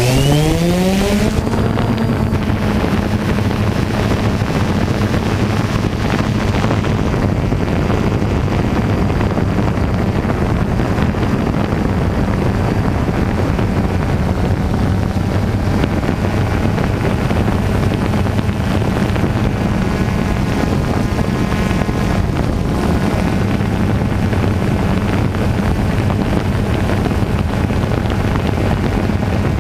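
An engine revs up over about the first second and a half, then runs on at a steady pitch, with wind noise on the microphone.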